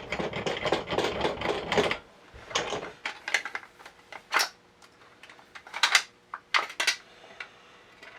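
Stainless-steel parts of a pump-action shotgun clicking and sliding against each other as the action is released and worked by hand: a dense rattle of clicks for about two seconds, then single sharp clicks and scrapes every second or so.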